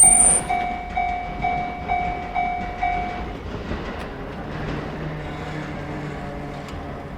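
Japanese level-crossing warning bell dinging about twice a second over the noise of a train, stopping about three seconds in. A brief high squeal sounds at the very start, and a low hum follows after the bell stops.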